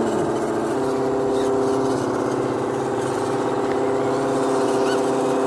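Motors and gear trains of RC rock crawlers whining steadily as the trucks crawl slowly over loose gravel, the pitch stepping up or down a couple of times as the throttle changes.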